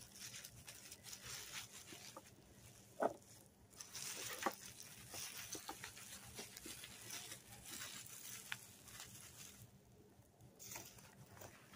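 Bubble wrap rustling and crinkling as hands unwrap a glass piece, with scattered sharp crackles of the plastic.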